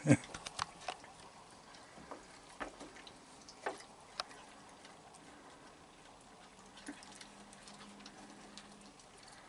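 Raccoons feeding on a wooden deck: scattered faint clicks and taps of claws, chewing and paws at a water bucket, a quick cluster in the first second and then single ticks every second or so.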